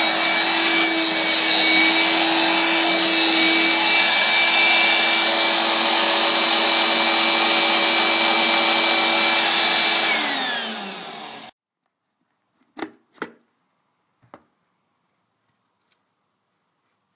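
Small Hoover Brush Vac vacuum cleaner, with a belt-driven brush bar, running steadily with a high whine, then switched off about ten seconds in: the motor winds down, falling in pitch, before the sound cuts off suddenly. Two quick clicks follow, then a third about a second later.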